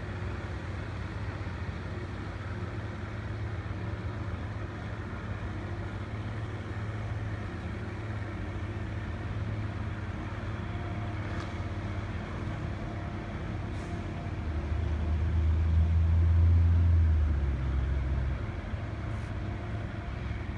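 Motorboat engine running steadily with a low hum as a small open boat crosses the water. It grows louder for a few seconds about two-thirds of the way in as the boat passes closest, then eases back.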